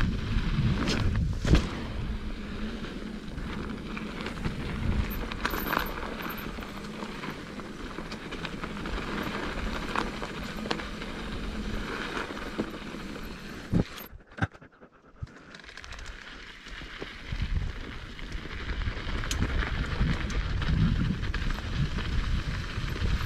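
Mountain bike rolling down a dirt trail: tyre noise over dirt with the chain and frame rattling and sharp knocks over bumps. The sound drops away almost to nothing for a second or two about fourteen seconds in, then the rolling rattle comes back.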